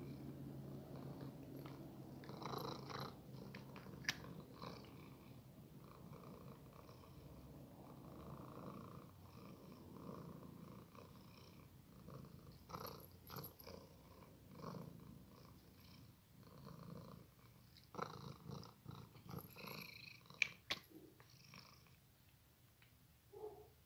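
Domestic cat purring, loudest at the start and fading, with scattered light clicks and rustles.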